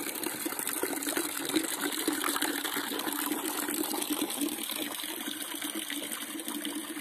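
Rope pump running: water splashing and gushing steadily as the rope is drawn through the shallow water at the bottom of the well and lifted up the pump pipe.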